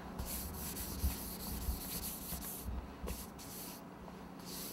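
Hands smoothing a sheet of rolled fondant over a cake: soft rubbing strokes in a few long stretches, with short pauses between them.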